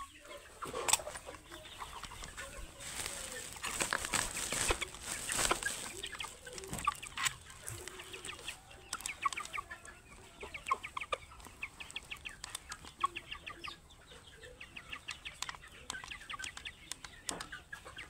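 A flock of Sonali chickens, about ten weeks old, clucking and chirping, with many short calls overlapping. Rustling and scuffing noises are heard in the first half, loudest a few seconds in.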